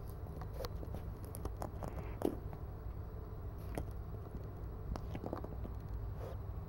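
A cat biting and pawing at a plastic gacha capsule toy: irregular light clicks and taps of teeth and claws on the hard plastic, with one sharper knock about two seconds in.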